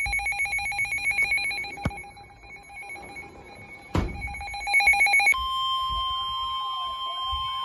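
Weather alert radios going off. A rapid trilling alarm rings and stops about two seconds in, then starts again briefly after a click. About five seconds in, a steady high alert tone begins, the NOAA Weather Radio warning tone that comes before a broadcast warning, with a warbling up-and-down tone running under it.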